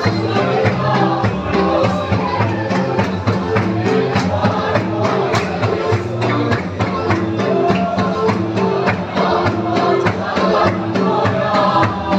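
Gospel music: a group of voices singing a hymn over sustained low instrumental notes, with a steady, regular drum beat.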